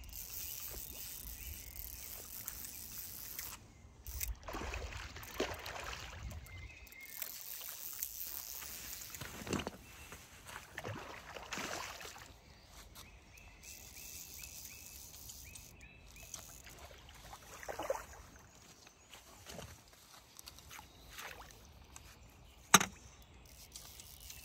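A hooked carp splashing and swirling at the surface of the water, several separate splashes. A single sharp knock near the end is the loudest sound.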